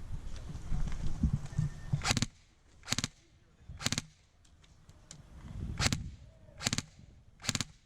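Airsoft gun firing six short bursts, each a split second long and spaced about a second apart, after a couple of seconds of low rumbling movement noise.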